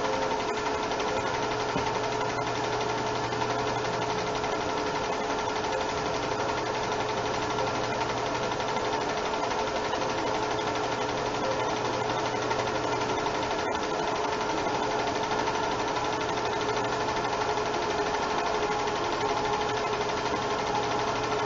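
8mm film projector running: a steady mechanical whirr and chatter of the film drive, with a constant hum underneath.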